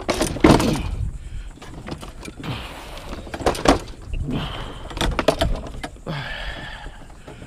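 Scrap metal items being shoved onto a loaded vehicle, clanking and scraping against other metal in a series of sharp knocks and clatters.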